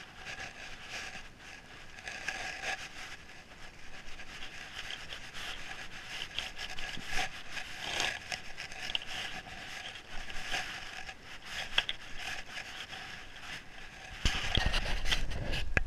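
Saddle and tack creaking and rubbing as a mule walks under its rider, with irregular crackles throughout and a louder rush of rubbing noise for the last couple of seconds.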